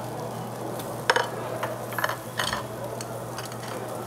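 Steady restaurant hum and hiss, with a few sharp clicks and clinks of metal chopsticks against bowls between about one and two and a half seconds in.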